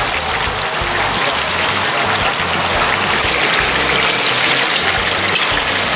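Deep-frying: hot oil sizzling steadily in a large wok full of battered snacks.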